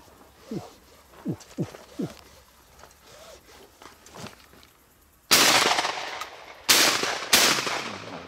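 Three shotgun shots fired at wood pigeons, each with a long echoing tail: one about five seconds in, then two close together about a second and a half later.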